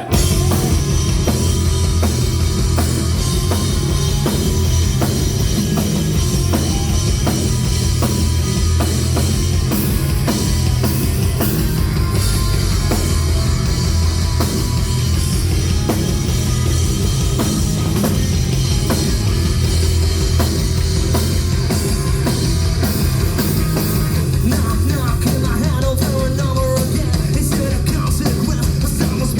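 An alternative metal band playing live: full band with a drum kit keeping a steady, driving beat.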